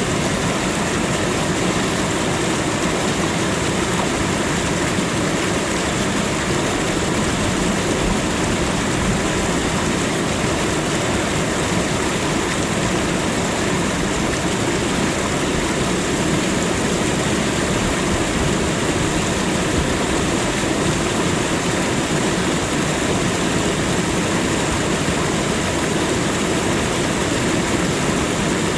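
Waterfall: water falling and splashing in a steady, loud rush without a break.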